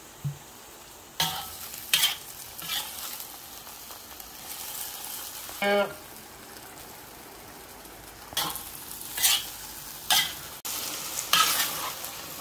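Beef, carrot and potato frying in a wok with a steady sizzle. A metal spatula scrapes and clatters against the wok in several sharp bursts as the food is stirred. A short pitched squeak comes a little before the middle.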